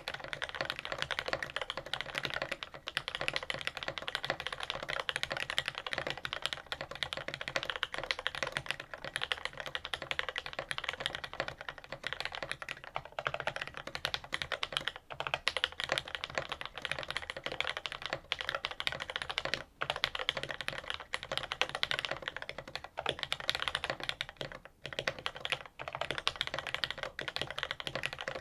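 Continuous fast typing on a mechanical keyboard with lubed linear Cherry MX Black switches on a stainless steel plate, under GMK doubleshot keycaps: a dense run of keystrokes with a few short pauses.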